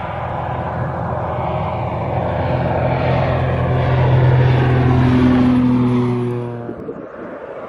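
Helio Stallion's turboprop engine and propeller on a low fly-by, growing louder as the plane comes in and is loudest about four to five seconds in as it passes overhead, then falling away sharply near the end.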